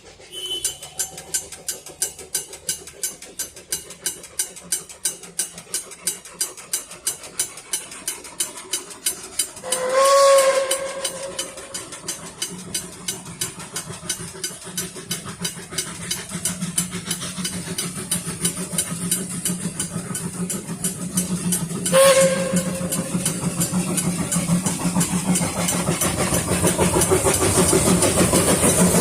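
Puffing Billy steam train approaching, its locomotive working in steady rhythmic beats that grow louder, with rising steam hiss near the end. The steam whistle sounds twice: a longer blast about ten seconds in and a shorter one about twelve seconds later.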